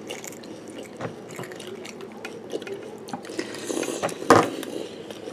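Spoons clicking and scraping in plastic cereal bowls and milk sloshing as cereal is eaten, with many small scattered clicks and a louder thump about four seconds in.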